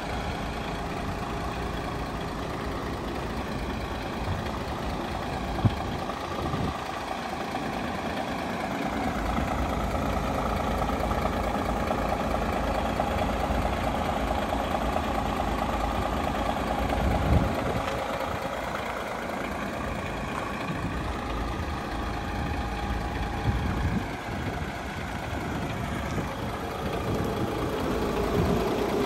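DAF XF106 tractor unit's Paccar 460 bhp Euro 6 diesel engine idling steadily.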